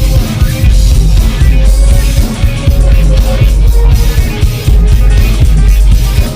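Loud, dense rock music with heavy distorted bass and a steady drum beat.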